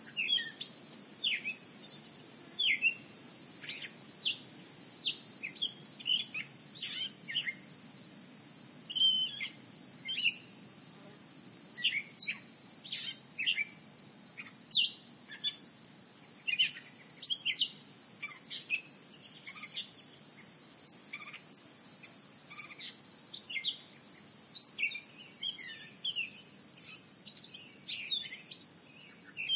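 Insects trilling as one steady high whine, with many short, quick bird chirps scattered over it.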